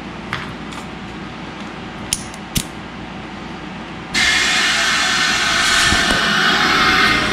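A few light clicks, then about four seconds in a sudden loud, steady hiss. It is compressed air from a 120 psi shop air system rushing through the hose and the quarter-inch Monster Valve into a 42-inch tire as it starts to inflate.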